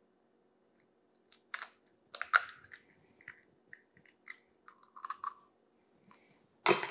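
Eggshell being cracked and pulled apart by hand over a glass bowl: a run of small crackles and clicks, then one sharp knock near the end.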